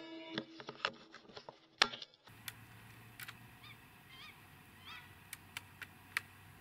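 The ringing tail of a rimfire rifle shot, followed by sharp metallic clicks and a louder knock a little under two seconds in. Then faint hiss with scattered soft clicks and three short, distant calls that rise and fall in pitch.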